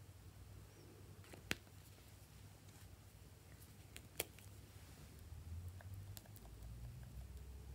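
Hard plastic clicks as the toy markers and their caps are handled: two sharp clicks, about a second and a half in and again about four seconds in, with a few lighter ticks later, over faint room tone.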